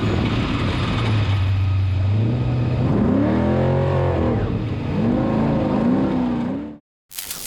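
Off-road race truck engine running hard, its pitch rising and falling several times in the middle as it revs up and down. The sound cuts off abruptly near the end and is followed by a rough rush of noise.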